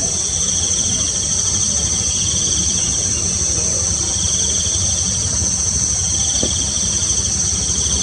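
Insect chorus: a steady high-pitched drone with a lower, pulsing trill that comes and goes every couple of seconds, over a low background rumble.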